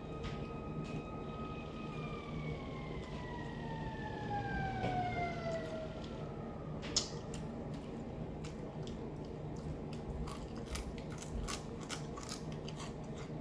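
A siren holds one pitch, then slides slowly down over about four seconds and fades out. After that comes close-up eating of crispy fried fish: sharp crunches, lip smacks and finger-licking clicks.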